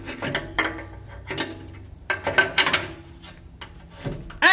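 Ratchet and socket working a stuck, rusted fastener loose: a run of short metallic clicks and rasping scrapes, busiest a couple of seconds in, with a brief rising squeak near the end.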